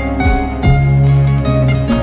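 Instrumental background music with no singing: higher notes over a deep, steady bass line.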